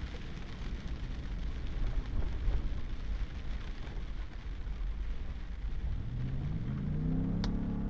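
Pickup truck driving on a wet, muddy gravel road, heard from inside the cab: a steady low rumble of tyres and road noise, with the engine note rising about six seconds in as the truck picks up speed. A single sharp click near the end.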